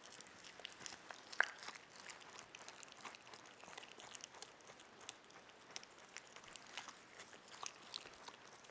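Capybara chewing cooked yams: a steady run of small, soft clicking chews, with one sharper click about a second and a half in.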